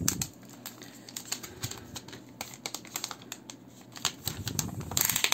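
Thin clear plastic film crackling and crinkling as it is peeled and slid off a new smartphone: a quick run of small clicks, with a louder rustle about five seconds in.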